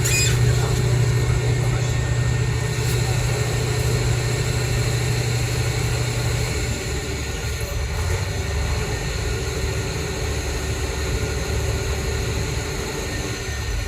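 Large diesel engine running steadily at a constant speed. Its low hum drops slightly in pitch and loudness about halfway through.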